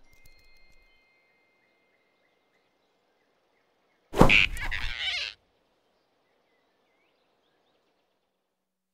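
Near silence, broken about four seconds in by one sudden loud swish lasting just over a second: a cartoon sound effect of a big rabbit snatching a flying squirrel in his fist.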